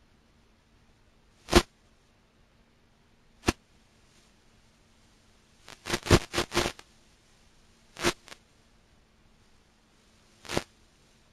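Short, sharp crackles over a faint steady hum: single pops about 1.5, 3.5, 8 and 10.5 seconds in, and a rapid cluster of five or six near the middle.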